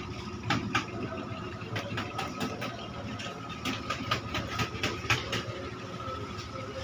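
Motor of a klotok river boat running steadily, with irregular sharp clicks or knocks during the first five seconds or so.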